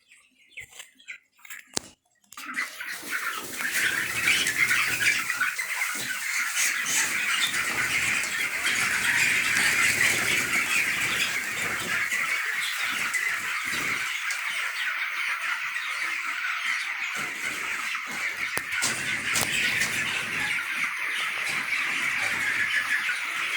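A large flock of chickens calling all together in a dense, continuous chorus that sets in about two seconds in, with some wing flapping.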